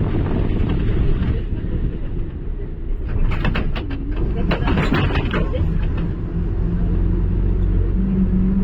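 A motor vehicle running, a steady low engine hum and road rumble, with a short stretch of sharp clattering sounds near the middle.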